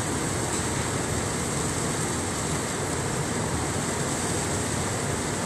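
Steady, unbroken drone of heavy machinery and engines, an even rushing noise with no distinct knocks or changes.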